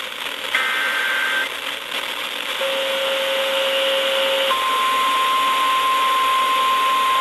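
NOAA Weather Radio alert broadcast over a hissing radio signal: the last warbling data bursts of the SAME/EAS header, a short lower steady tone, then the steady 1050 Hz warning alarm tone starting about halfway through and held, which announces that a new warning message follows.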